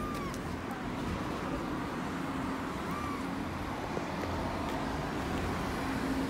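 Steady low rumble of a moving car heard from inside, with a newborn kitten in a plastic carrier giving faint, short high mews at the start and again about three seconds in.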